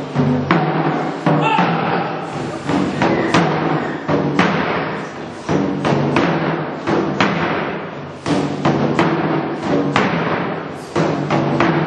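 Korean drum ensemble playing live: repeated loud drum strikes in a fast rhythm, the drums ringing on between hits.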